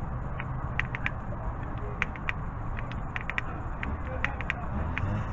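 Grease gun working grease into the outer tie rod end's grease fitting: a scatter of short sharp clicks, some in quick pairs and threes, over a steady low rumble.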